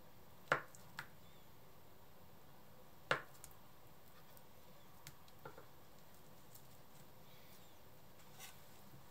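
Chef's knife slicing kamaboko fish cake and knocking on the cutting board: a few isolated sharp knocks, the loudest about half a second and three seconds in, with fainter ticks between.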